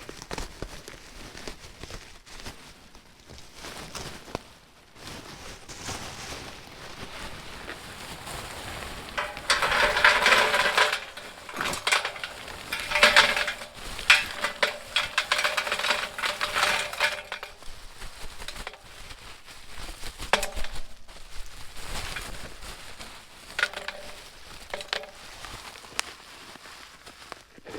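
Loose stones from opened bags being dumped into a gas fire bowl, a dense clatter and clinking of many small hard pieces, loudest in a few pours in the middle.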